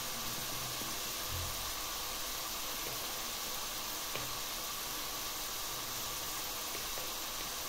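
A steady, even hiss with a few faint soft ticks as a small knife cuts peeled tomatoes by hand.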